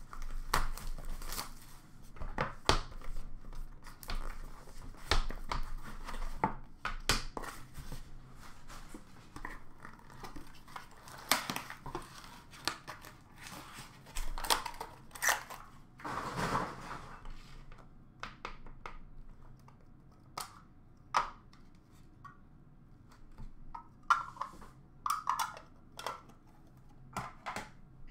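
A sealed hockey card box is torn open by hand: a run of rips and crinkles from its wrapper and cardboard packaging. These thin out after about the halfway point to scattered taps and rustles as the pieces are handled.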